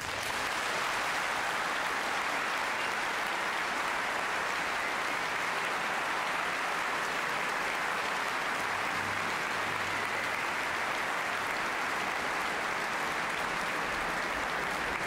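Large concert-hall audience applauding, starting suddenly the moment an orchestral piece ends and holding steady.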